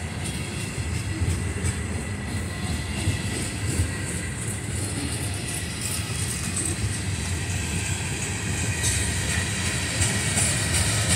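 Freight train's tank cars rolling past: steady rumble of steel wheels on the rails with faint clickety-clack, growing a little louder near the end.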